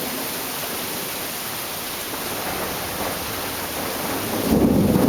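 Steady hiss of heavy rain. About four and a half seconds in, a sudden loud rumble of thunder breaks in.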